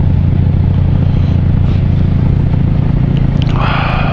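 Small Honda Dio two-stroke scooter engine running steadily while riding, with wind rumble on the microphone. A brief rushing hiss comes in near the end.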